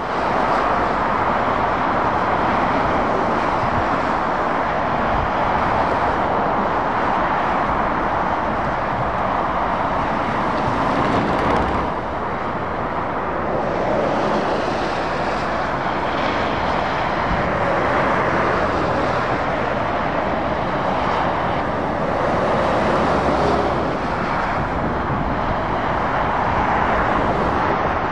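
Motorway traffic: lorries and cars passing, a continuous rush of tyre and engine noise that swells and eases as vehicles go by, briefly quieter about twelve seconds in.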